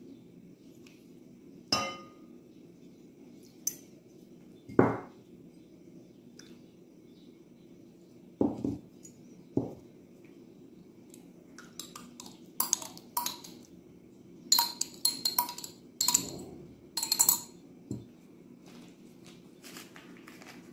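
Glass dishes, a tea glass and a spoon clinking and knocking against a large glass mixing bowl as ingredients are tipped and scraped into it: a few separate knocks in the first half, then a busier run of clinks. A faint low hum runs underneath.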